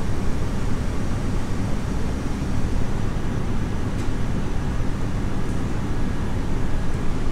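Steady low background rumble, with one faint tap about four seconds in as a finger presses the vending machine's touchscreen.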